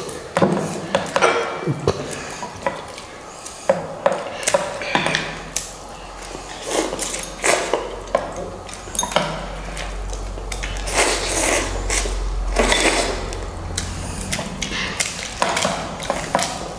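Tableware clinking and knocking, utensils against bowls during a noodle-eating contest, in many quick irregular strikes.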